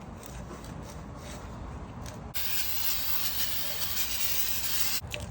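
A pressurised spray hissing steadily for about three seconds, starting abruptly about two seconds in and cutting off sharply near the end, after a couple of seconds of faint shop background.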